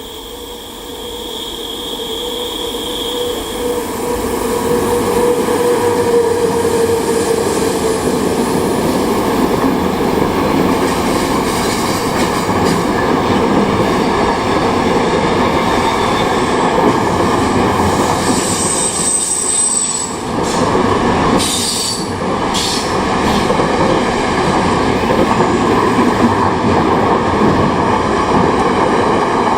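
Train approaching and rolling past close by, growing loud over the first few seconds and then holding a steady rolling rumble. High wheel squeals ring out near the start and again about two-thirds through, with a couple of sharp clanks soon after.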